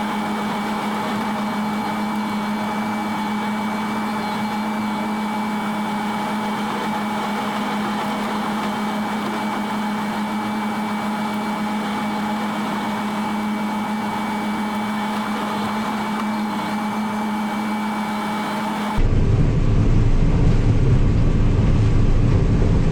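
Combine harvester running steadily during corn harvest: a constant machine hum with a steady whine. Near the end the sound changes abruptly to a louder, deeper rumble.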